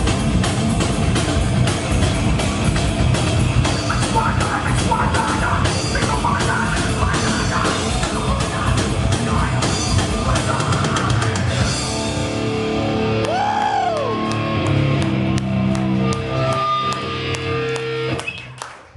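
Heavy metal band playing live: distorted guitars, bass and a pounding drum kit. About twelve seconds in the drums drop out and the song winds down to ringing held notes, one of which swoops up and back down, before fading out near the end.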